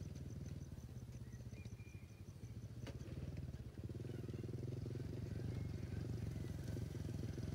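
Small motorcycle engine running steadily as it approaches, growing louder from about halfway through. Insects chirp faintly and evenly at first.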